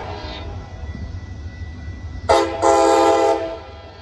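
Metra diesel locomotive's multi-chime air horn sounding from an approaching train: a short blast about two seconds in, then a longer blast that ends shortly before the close, with the fading tail of an earlier blast at the start. A low steady rumble lies underneath.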